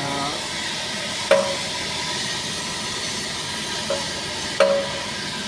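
Steady hiss with three sharp knocks, each with a brief ringing tone: about a second in, near four seconds, and a louder one near the end.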